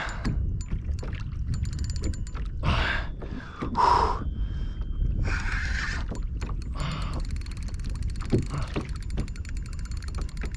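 Fishing from a kayak while fighting a bull redfish: knocks and splashes on and against the kayak, with a rapid run of clicks from the spinning reel, denser in the second half, over a steady low rumble.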